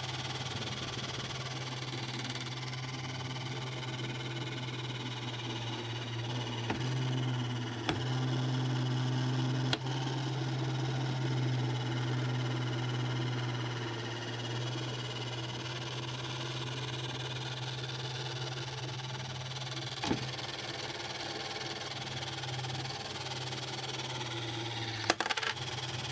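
Radio Shack Robotic Banker toy's small electric motor and gearbox whirring steadily as the arm swings, picks up a nickel and carries it to the bank. The whir grows louder for several seconds in the middle, with single clicks along the way and a short clatter of clicks near the end.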